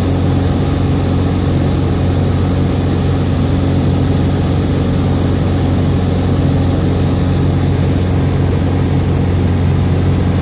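Sonex light aircraft's engine and propeller running steadily at cruise, heard from inside the cockpit as an even low drone with no change in power.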